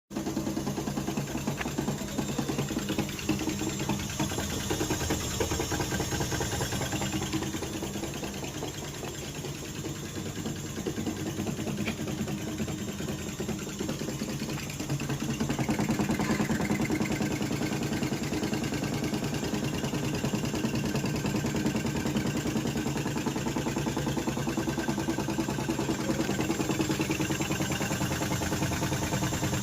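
Fully automatic washing machine running with a continuous, fast mechanical rattle and vibration, the abnormal noise that is its fault. The noise eases off a little in the middle, then grows louder about halfway through and holds steady.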